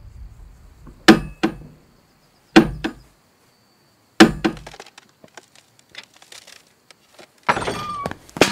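A mallet strikes a wall three times, about a second and a half apart, each blow cracking and followed by a lighter knock. Small pieces clink and fall in between, and a louder noisy stretch starts near the end.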